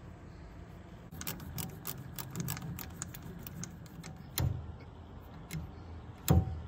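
Small metal parts clicking and clinking in quick succession for about three seconds as levers are fitted to a tilt steering column. Then two separate knocks follow, the second the loudest, over a low steady hum.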